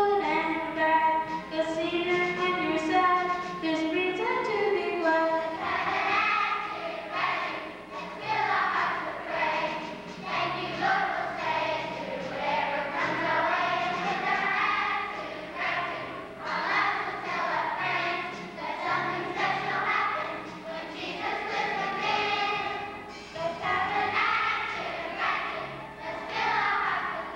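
Children's choir singing. A girl sings solo into a microphone first, and the full choir joins in about five seconds in.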